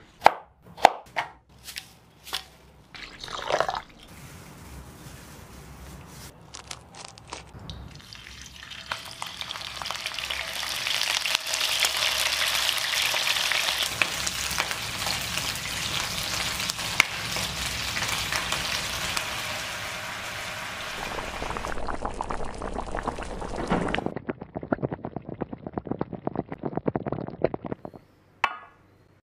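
A cleaver chops through a potato on a cutting board, a handful of sharp knocks. Then chicken wing pieces and potato sizzle loudly in oil in a frying pan for many seconds, followed near the end by a fast run of light clicks as the food is stirred.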